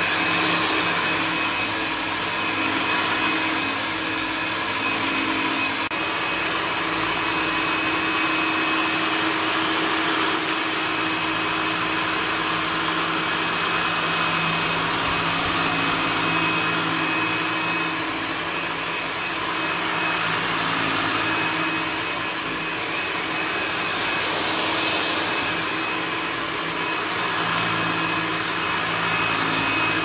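1975 Hoover PowerDrive U6033 upright vacuum cleaner running steadily over carpet, a constant motor hum and whine with a slight rise and fall in level as it is pushed to and fro.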